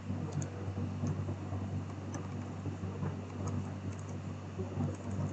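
Scattered, faint computer keyboard key presses as code is edited, a few irregular clicks over a steady low hum.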